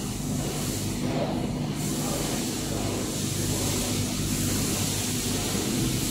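Hanger-type shot blasting machine's motors running with a steady hum under a constant hiss while its chamber door closes.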